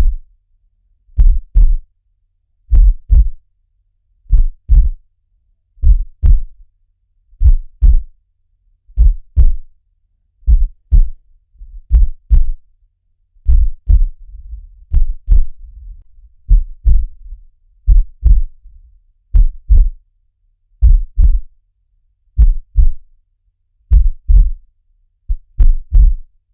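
A slow, steady heartbeat: low lub-dub double thumps about every one and a half seconds, the two beats of each pair close together.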